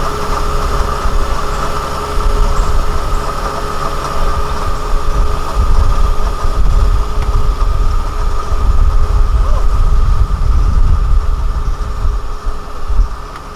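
Diesel engine running steadily with a constant whine, over a deep rumble that swells and fades.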